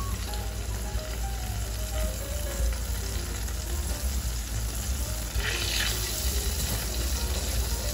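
Mustard and fenugreek seeds sizzling and spluttering in hot ghee in a frying pan as they are stirred with a wooden spatula, with a burst of louder crackling about five and a half seconds in.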